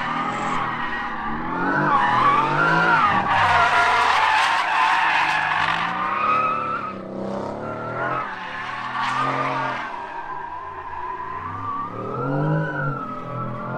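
Mercedes-AMG car drifting: the engine revs rise and fall repeatedly while the tyres squeal and skid, loudest from about two to six seconds in.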